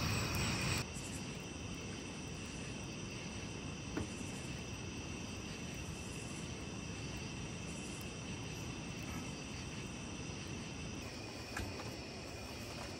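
Night insects chorusing outdoors: a steady, unbroken high trilling in several bands over a low background hum, with a single sharp click about four seconds in.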